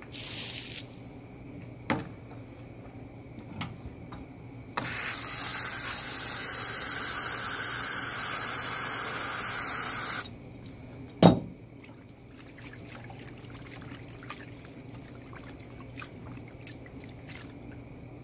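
A garden hose spray nozzle sprays water into a plastic tub of water for about five seconds, then cuts off sharply. About a second later there is one loud sharp knock, then faint splashing as hands rinse fish fillets in the tub.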